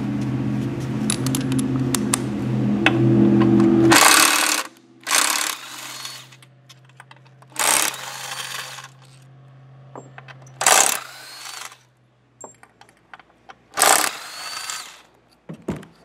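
A cordless power driver with a socket runs in five short whirring bursts, each about half a second to a second long, backing out the bolts that hold a throttle body to a plastic intake manifold. During the first four seconds a steady machine hum runs under light clinks of tools.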